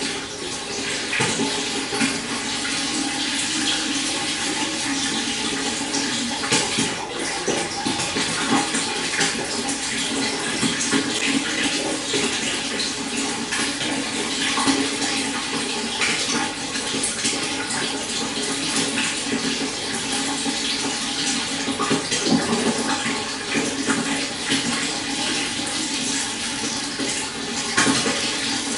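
Stream running over a shallow bed: a steady rush of flowing water with many small splashes.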